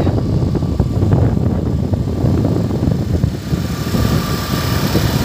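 Small motorbike riding along a road: its engine runs under a loud, uneven low rumble of wind buffeting the microphone.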